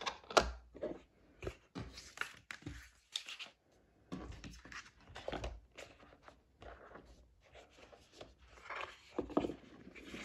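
Hands handling album packaging on a table: a run of clicks, taps and rustles of cardboard and plastic, the sharpest click just after the start.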